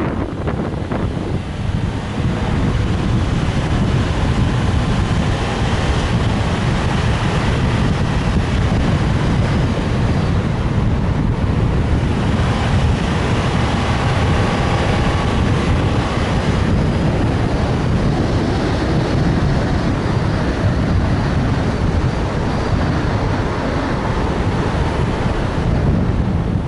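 Steady rush of wind buffeting the microphone of an action camera pole-mounted outside a moving car, mixed with the car's road noise.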